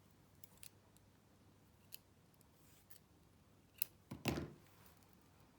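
Scissors snipping yarn: a few faint clicks, then a sharp snip and a louder cut with handling noise a little past four seconds in.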